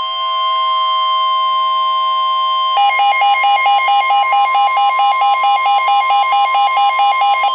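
Electronic weather-alert tone: a loud, steady chord of several high pitches that switches about three seconds in to a rapid pulsing alarm, about four pulses a second. It announces a severe thunderstorm warning.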